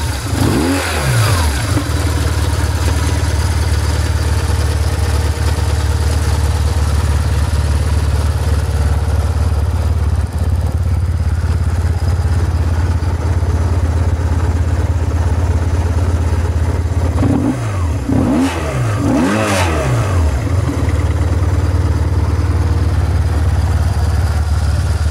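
BMW R1150R's air-cooled boxer twin idling steadily, revved up and dropping back near the start and blipped twice more about three quarters of the way through.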